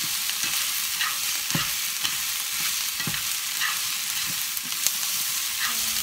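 Shrimp fried rice sizzling in oil in a nonstick frying pan while being stirred and tossed with chopsticks, with soft scrapes and taps against the pan every second or so.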